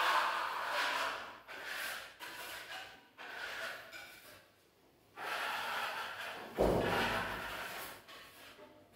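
Steel trowels scraping over a burnt-cement coating on a wall in a series of rasping strokes, each about a second long with short pauses between. A thump comes about six and a half seconds in.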